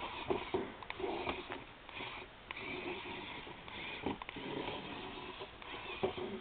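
Ferrets sniffing at a small toy figure, an irregular run of short sniffs with a few light clicks.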